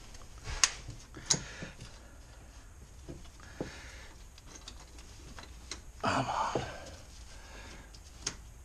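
Scattered sharp clicks and light knocks of wiring and plastic parts being handled in a truck's engine bay, with a louder scraping rustle lasting about half a second around six seconds in.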